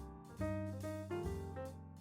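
Background music: a jazzy piece with piano chords over bass, a new chord struck twice and fading between strikes.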